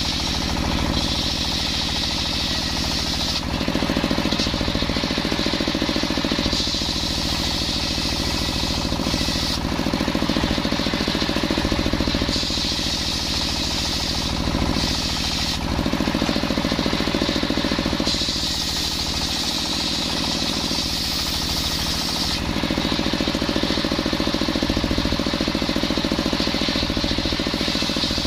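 Engine-driven circular sawmill cutting coconut timber: the engine runs steadily throughout, and a higher hiss of the blade cutting through the wood comes and goes in several stretches of a few seconds each.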